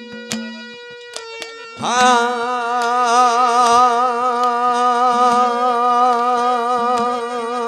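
Live folk devotional music: regular drum strokes, then about two seconds in a man starts a long held sung note with a wide vibrato, which carries on over a steady low drone.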